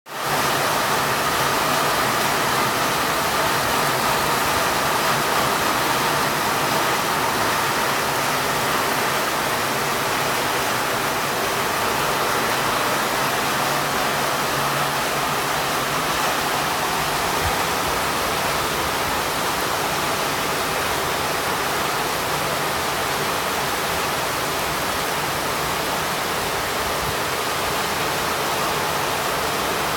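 Heavy rain pouring steadily onto coconut palm fronds, foliage and tiled roofs: a dense, even hiss with no breaks.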